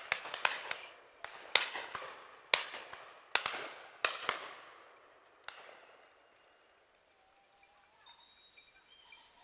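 A volley of shotgun shots from the pheasant shoot: about nine sharp reports in the first five seconds or so, each trailing off in a long echo. In the last few seconds faint small-bird calls are heard.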